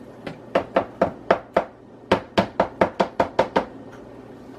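A spoon tapping quickly against a bowl of seasoning paste, in two runs of about five taps a second with a short pause between them.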